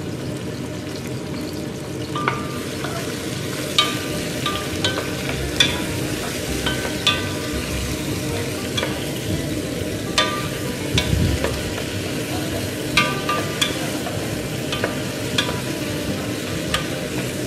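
Sliced red onions frying in hot oil in a pot, a steady sizzle, cooking toward translucent. From about two seconds in, a wooden spoon stirs them, knocking and scraping against the pot in frequent sharp clicks.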